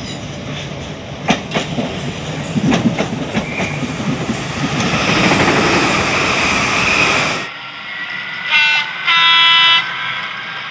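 A passenger train running past on the rails, its wheels clicking over rail joints and its rumble swelling to a peak before cutting off abruptly. Then a train horn sounds twice, a short blast followed by a longer one.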